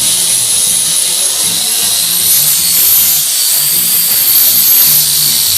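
An electric power tool runs steadily, with a high-pitched whine and hiss, over a low musical beat.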